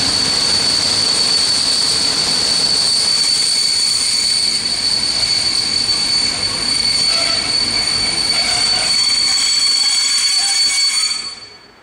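Passenger train's wheels and brakes squealing with a steady high-pitched squeal over the rumble of the running gear as the train slows to a stop in a station; a second, lower squeal joins about halfway, and the sound cuts off sharply near the end.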